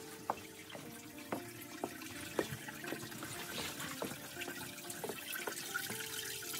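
Slow background music: single held notes, a new one struck about every half second, over a faint hiss.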